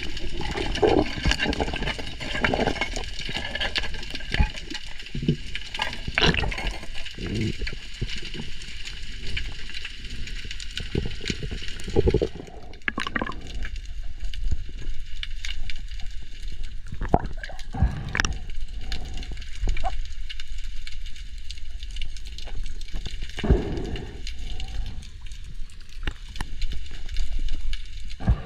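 Underwater sound through a camera: a muffled rush of water with gurgling and scattered knocks, and a faint steady high hum that fades about halfway through.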